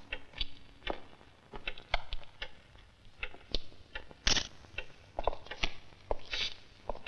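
Scattered light clicks and taps in a room, irregular and a few a second, with sharper ones about four and six seconds in: footsteps and small handling noises.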